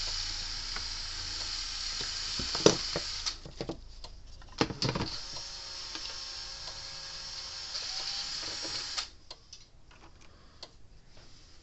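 A steady high hiss with a low hum underneath, which cuts off about nine seconds in, with a few sharp clicks and knocks about a third of the way through.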